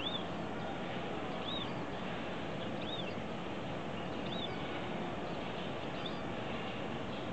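Black bulbuls at the nest: short, high, arching chirps repeated about every second and a half, over a steady background hiss.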